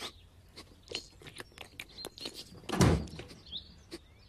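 Scattered soft clicks and knocks, with one louder thump about three seconds in and faint bird chirps behind.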